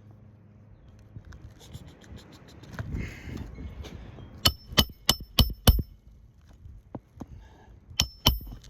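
Hammer driving roofing nails into an asphalt shingle: five quick ringing strikes, then two more near the end, with some scraping before them.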